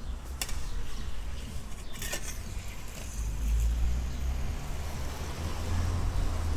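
Metal server working under a slice of crisp künefe on its metal tray: two sharp clicks against the tray and faint crunching of the crisp kadayıf crust, over a low rumble.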